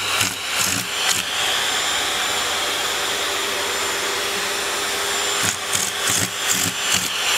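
Vacuum cleaner running with a cat's mouth at the hose nozzle. The suction noise pulses about three times a second as the cat mouths the opening, then turns to a steady hiss for a few seconds in the middle before the pulsing returns near the end.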